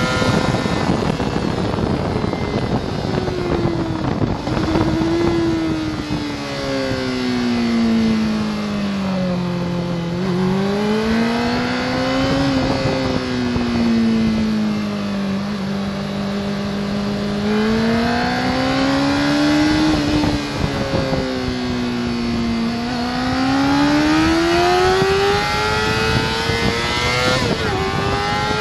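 Sport motorcycle's engine heard from onboard over rushing wind. The revs fall as the bike brakes hard from high speed and stay low through a slow corner. They then climb again under acceleration, dropping sharply at two upshifts near the end.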